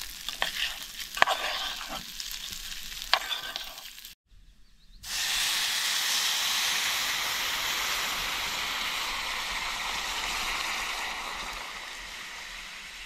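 Rice frying in hot fat in an aluminium pot, crackling as a spoon stirs it. After a short break, water is poured into the hot pot and it sizzles loudly and steadily, easing off gradually near the end: the rice is being toasted and then boiled.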